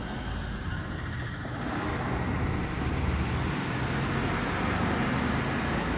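Steady background rumble and hiss with no distinct events, growing a little louder about two seconds in.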